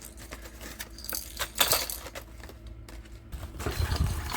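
Hard plastic fishing lures and their packaging being handled and set down: scattered small clicks and clinks, a brighter cluster of them about one and a half seconds in, and some low handling bumps near the end.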